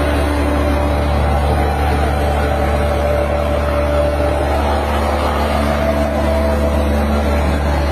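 Mosquito-fogging machine (fumacê) running: a steady engine drone with a strong low hum and a few constant tones above it.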